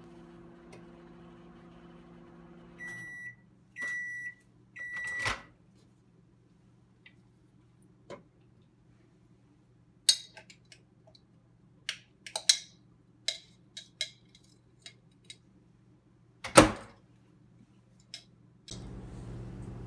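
Microwave oven running with a steady hum that stops about three seconds in, followed by three evenly spaced beeps marking the end of the heating cycle and a sharp click. Then scattered light clicks and knocks, with one louder knock near the end.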